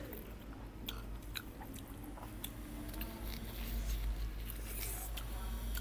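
A person chewing and biting into pork ribs close to the microphone, with scattered small mouth clicks and smacks over a low steady hum.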